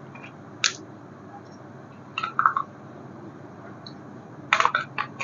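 Short, sharp clicks and clacks of objects being handled: a single click, then two small clusters of them, over a steady low hum.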